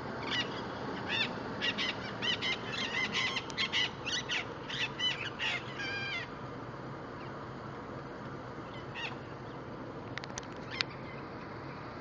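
Abaco parrots, the Bahamas race of the Cuban amazon, calling in harsh squawks: a rapid run of many calls for about the first six seconds, then a few scattered squawks.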